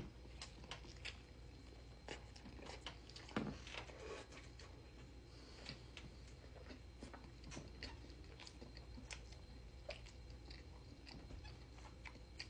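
Close-miked chewing of a vegan burger, faint wet clicks and soft crunches from the mouth over a low steady hum, with a sharper snap right at the start and another about three and a half seconds in.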